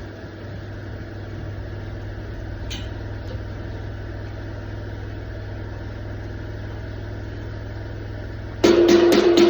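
An engine idling steadily with a low hum, a single click about three seconds in. Near the end, loud strummed guitar music comes in.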